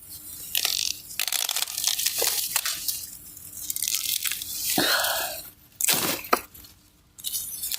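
Dry corn leaves and husks rustling and crackling in bursts, with a few sharp cracks, as ears are twisted and broken off the stalks by hand.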